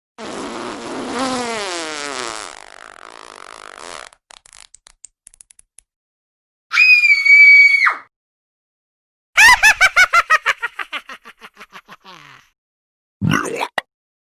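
A run of separate sound effects with short silences between them. First comes a pitched sound falling in pitch for a few seconds, then a few faint ticks, a steady high beep of about a second, a quick series of pulses that fades away, and a short sweep near the end.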